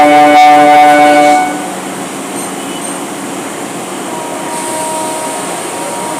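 An Indian Railways train horn blasts for about a second and a half, then stops, over the steady rumble of a train running close by.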